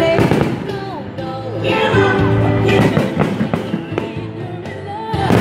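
A song with a singing voice plays loudly, and several fireworks bangs sound over it.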